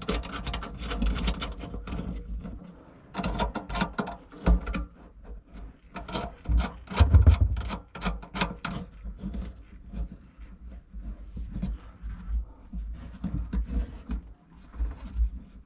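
Small metal parts of a garbage disposal's sink mounting assembly clicking, scraping and rattling as they are handled and hand-tightened, with a low thump about seven seconds in.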